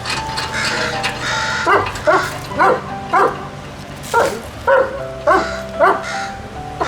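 A series of about nine short, sharp animal calls, each sweeping up in pitch, over background music with long held notes.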